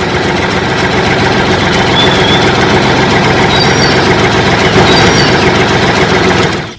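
A loud, steady machine noise, like a motor running, that cuts off suddenly near the end.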